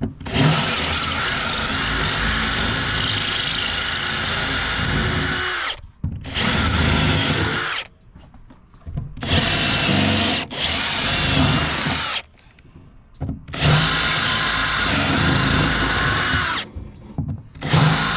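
Power drill running in about five bursts of a few seconds each with a steady high whine, stopping and starting between them: drilling out a plate on a boat so it can be taken off.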